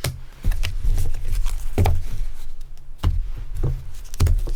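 A handful of dull thumps and light taps from trading cards and card packs being handled and set down close to the microphone.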